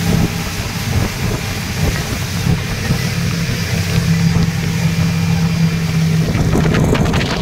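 Speedboat engine running steadily at speed with a low hum, with water and wind rushing past.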